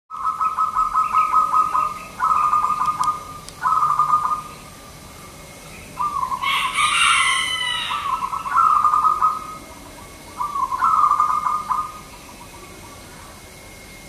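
Zebra dove (perkutut) cooing in its typical song: six phrases of quick staccato notes, each lasting about one to two seconds with short gaps between them. About seven seconds in, a brief higher-pitched, harsher sound overlaps one phrase. The last phrase ends about two seconds before the end.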